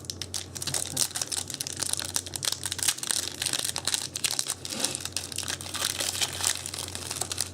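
Foil Yu-Gi-Oh booster pack wrapper crinkling as it is handled and torn open, a dense run of fine crackles.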